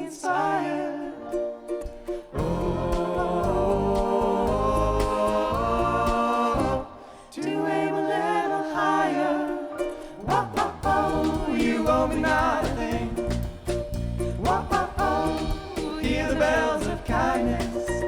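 Live song performance: voices singing in harmony over an instrumental accompaniment, with brief breaks about two and seven seconds in.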